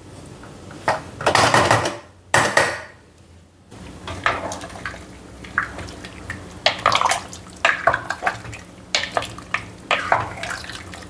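Wooden spoon stirring a thick stew of beef ribs and vegetables in a pressure cooker, with repeated small knocks and scrapes against the pot and wet squelching of the food. Two brief clattering bursts come in the first few seconds, before the stirring starts.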